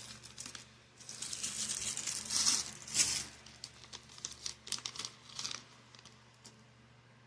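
Seed-pack packaging crinkling and rustling as it is handled, loudest two to three seconds in, then a run of lighter crackles and clicks.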